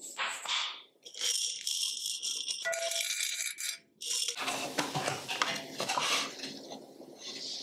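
Dried goji berries rattling in a glass jar as it is shaken out, tumbling into a glass tea pitcher, with a brief drop in sound near the halfway point before more rattling.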